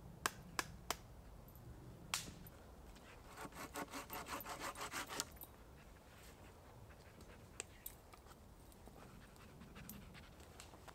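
A few sharp clicks, then a folding hand saw cutting through a fallen branch in a run of quick, even strokes, about six a second, for around two seconds.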